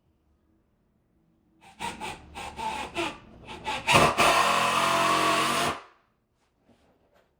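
A saw cutting through a 2x4: a run of short, uneven strokes, then about two seconds of loud continuous cutting that stops suddenly.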